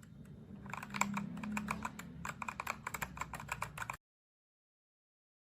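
Ajazz AK992 gasket-mount mechanical keyboard with red linear switches being typed on: fast, irregular keystrokes that cut off suddenly about four seconds in.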